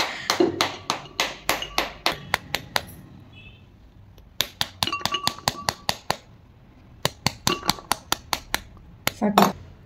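Steel spoon striking the back of a halved pomegranate, held cut side down over a glass bowl, to knock the arils loose. It goes as sharp knocks at about four a second, in runs of a second or two with short pauses. The hack is not working: only a few arils fall.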